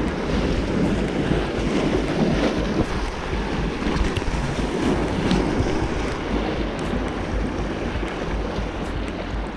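Wind buffeting the microphone over the steady wash of sea waves, a low rumbling noise.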